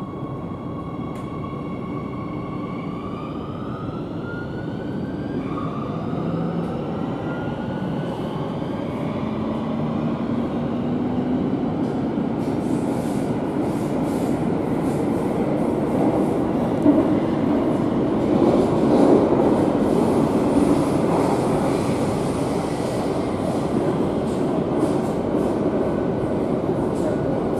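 Madrid Metro 8000-series train heard from inside the car as it pulls away and gathers speed. Its motor whine rises in pitch over the first several seconds, then running noise grows louder, with many sharp clicks and rattles of the wheels on the track from about halfway through.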